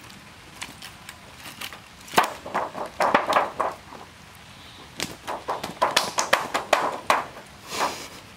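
A freshly speared carp thrashing on concrete and mud, its body slapping and knocking against the ground in two flurries of quick slaps, about two seconds in and again about five seconds in.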